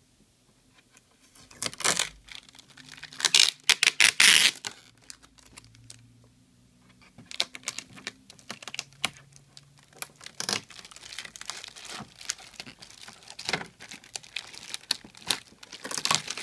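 Blue packing tape being peeled off a printer's protective plastic film, the film crinkling and the tape giving short ripping crackles. The loudest run of rips comes a few seconds in, then lighter crinkling and peeling continues in irregular spurts.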